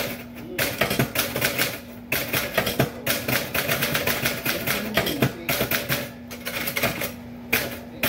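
Typewriter keys being struck in quick runs of many strikes a second, with short pauses between runs.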